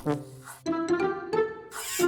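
Cartoon background music with short plucked string notes in quick succession, and a swish near the end.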